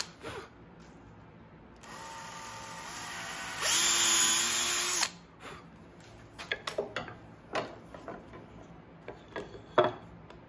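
Cordless drill boring a pilot hole in wood: the motor comes on at part speed about two seconds in, runs up to full speed for about a second and a half, then stops. After it come scattered clicks and knocks of the drill being set down and wooden pieces handled, the sharpest near the end.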